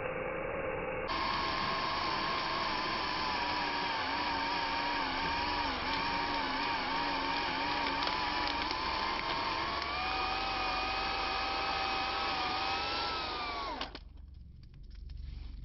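Cordless brushless drill running a 2 1/8-inch hole bit into wood. The motor pitch wavers and dips under load, rises about ten seconds in, then cuts off suddenly near the end.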